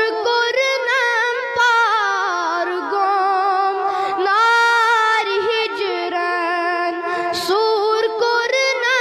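A boy singing a Kashmiri naat unaccompanied into a microphone, his high voice winding through ornamented notes and holding one long note about halfway through.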